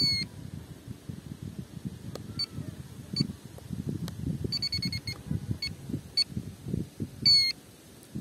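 Electronic beeps from a Carp Alligator 7 bait-boat remote handset as its buttons are pressed to save a GPS waypoint. The beeps are short and scattered, with a quick run of them around the middle and a longer, louder beep near the end.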